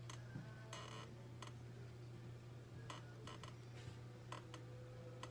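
Low steady hum of a spinning electric potter's wheel, with a scatter of short clicks and scrapes as a flexible metal rib smooths a porcelain spout; one longer scrape comes about a second in.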